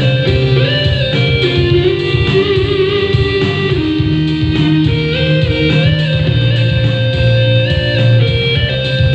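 Yamaha electronic keyboard playing an instrumental passage: a guitar-like lead melody that slides between notes, over a bass and drum accompaniment.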